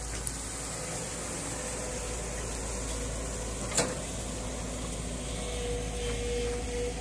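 JCB JS140 tracked excavator running, a steady drone with a faint whine that comes and goes as the boom swings out and the bucket is lowered into the river. One sharp click a little under four seconds in.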